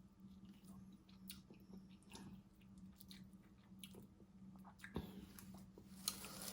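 Faint chewing and mouth sounds of a person eating a seafood boil, with scattered small clicks and smacks, a couple of sharper ones near the end, over a low steady hum.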